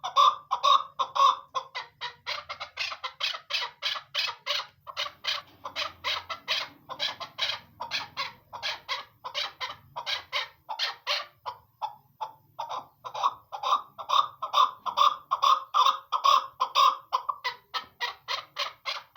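Chukar partridge calling in a long, rapid series of clucking notes, about three to four a second. The calls swell louder near the start and again later on, then cut off suddenly.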